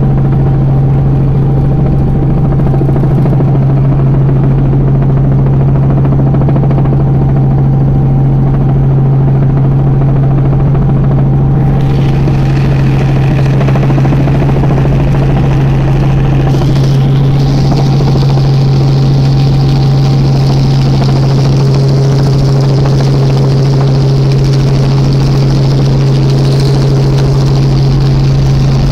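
Robinson R44 helicopter heard from inside the cabin: the six-cylinder piston engine and rotors make a loud, steady drone with a strong low hum. A higher-pitched noise joins about twelve seconds in and grows stronger a few seconds later, as the helicopter comes in toward the helipad.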